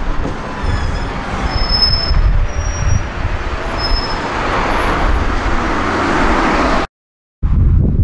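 Solaris Urbino 12 CNG city bus driving past, its engine and tyre noise swelling as it goes by, with wind buffeting the microphone. The sound cuts off abruptly for a moment near the end, then the wind rumble returns.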